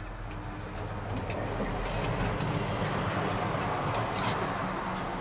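A passing motor vehicle: a low rumble and rushing noise that swells over the first couple of seconds and eases toward the end, with a few light clicks on top.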